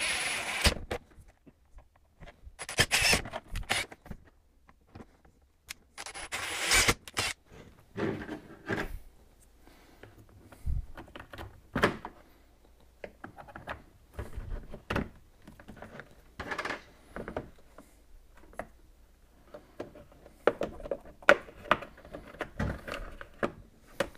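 A cordless drill running in three short bursts, boring holes through a plastic ammo-box lid, then scattered clicks, knocks and rattles of plastic and small metal parts being handled as panel gauges are fitted into the holes.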